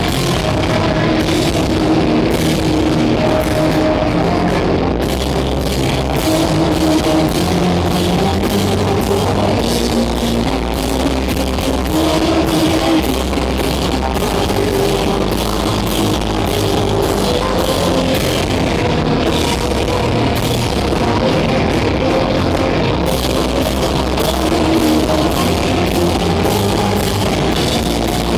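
Live rock band playing loud through a club PA: electric guitar, bass guitar and a drum kit with frequent cymbal hits, held at an even level throughout.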